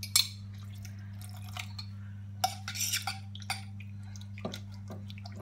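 Pickled onions and their juice dropping with wet plops into a pot of chopped tomatoes and baked beans, then a spoon stirring the thick mixture and knocking against the enamelled pot. Scattered sharp plops and knocks, the loudest just after the start, over a steady low hum.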